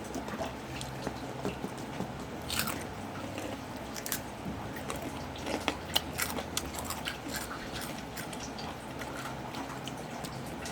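Crunching and chewing of crispy chicharon (fried pork rinds): irregular crisp cracks as bites are taken, thicker in the middle stretch, over a low steady hum.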